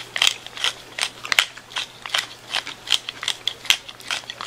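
Wooden pepper mill grinding pepper, twisted back and forth by hand in a steady run of short gritty crunches, about two or three a second.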